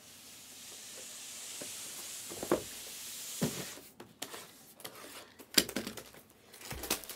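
Plastic shrink wrap on a sealed trading-card hobby box being slit with a cutter: a steady scraping hiss for about three and a half seconds, then crinkling of the wrap with a few sharp clicks and taps.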